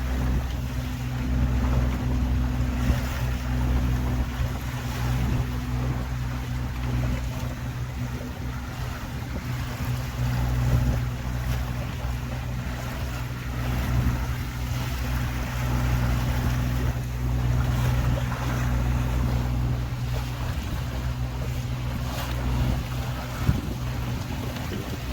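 Tour boat's engine running at a steady low drone while under way, with a hiss of water and wind noise over it.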